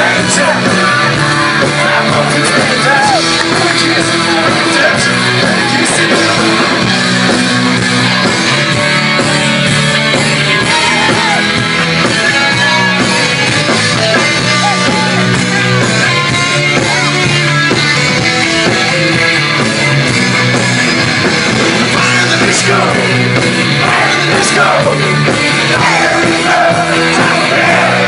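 Rock band playing live and loud, with electric guitar, bass and drums, and a singer's voice over the band.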